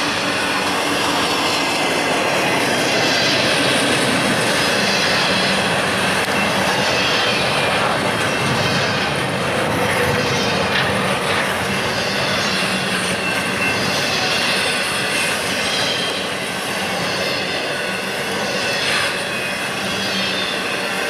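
BNSF intermodal freight train's cars rolling past close by, a steady loud rumble and clatter of steel wheels on rail, with some high-pitched wheel squeal.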